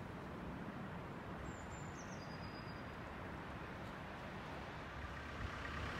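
Steady low outdoor rumble of background noise, with a short high bird call, falling in pitch, about two seconds in. The rumble grows a little louder near the end.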